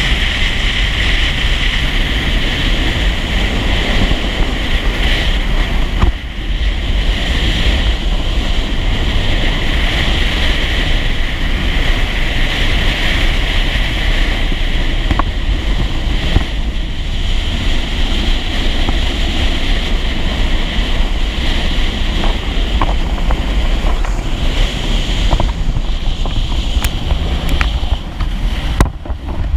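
Personal watercraft running at speed on open water, its engine and jet mixed with a steady rush of water and heavy wind buffeting the microphone. The noise dips briefly about six seconds in and again near the end.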